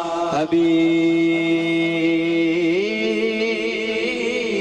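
A male voice singing a naat into a microphone, drawing out one long vowel on a held note with vibrato, then stepping up to a higher note about two and a half seconds in.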